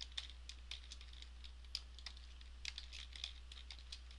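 Computer keyboard being typed on, quick irregular keystrokes in runs with a sparser stretch in the middle, over a faint steady low hum.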